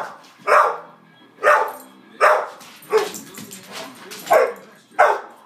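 A dog barking repeatedly, about seven loud barks at uneven spacing, roughly one a second, in a bid for the bone another dog is holding.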